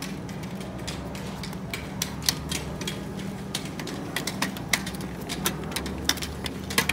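Footsteps climbing concrete stairs: boot heels and a small child's shoes striking the steps in sharp, irregular clicks that start about two seconds in, over a steady low hum.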